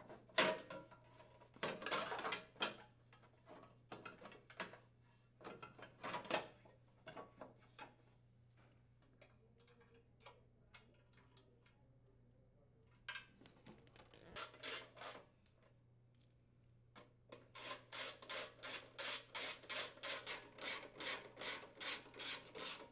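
Hand work on a snowblower's plastic muffler cover: scattered clicks and scrapes as the cover is fitted and its bolts threaded in, then, over the last six seconds, a socket ratchet tightening a bolt with a regular clicking of about three clicks a second.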